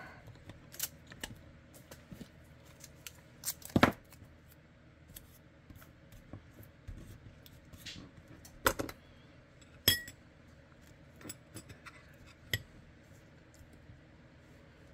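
Small tools and parts being handled on a workbench during holster building: scattered clicks, taps and clinks, the loudest about four and nine seconds in, over a faint steady hum.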